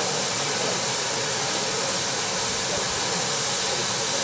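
Steady, continuous hiss of steam escaping from a standing steam locomotive.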